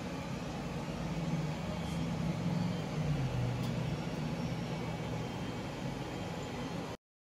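A steady low drone over a hiss, its pitch dropping a little about three seconds in, cutting off abruptly near the end.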